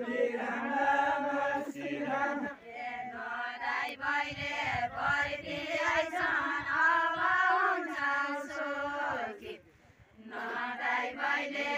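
A group of women singing a Nepali Deuda folk song together in a chanting style. The singing breaks off briefly near the end, then resumes.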